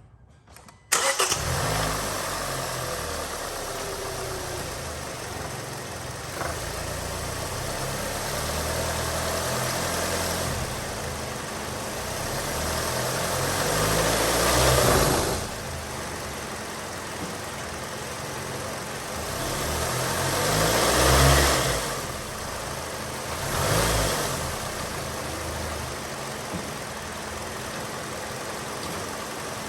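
Hyundai Sonata engine starting about a second in, then running at idle and swelling louder and easing back several times. The owner calls it a rough idle, which goes on after a throttle body cleaning and new spark plugs and which he puts down to bad motor mounts.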